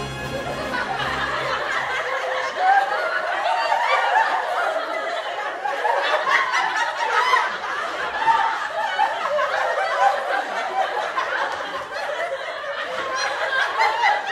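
A group of people laughing, many voices overlapping at once.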